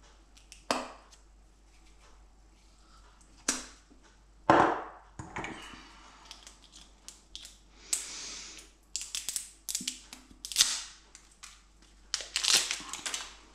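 Plastic spice jars being handled and opened: sharp clicks and knocks of caps and jars on a stone worktop, a brief rustling hiss about eight seconds in, and quicker runs of small clicks near the end.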